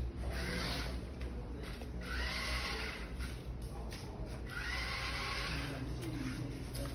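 Small electric motors of a robot car whirring in two bursts of about a second each, around two and five seconds in, over a steady low hum.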